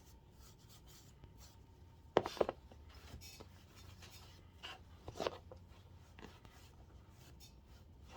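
Faint scratchy rubbing as oil is worked onto a leather knife sheath, with two short knocks of handling just after two seconds and another about five seconds in.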